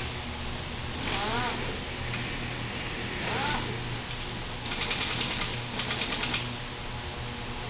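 Two runs of rapid clicking, about ten clicks a second, a little after halfway: a hand ratchet being worked on an engine on a stand, over a steady low workshop hum. Two short high gliding calls come earlier.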